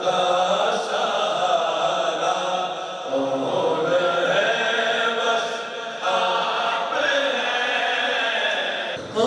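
A man singing a naat, an Urdu devotional song in praise of the Prophet, without instruments, through a microphone and loudspeakers. He sings long held lines with wavering, ornamented pitch and pauses briefly just before a new phrase near the end.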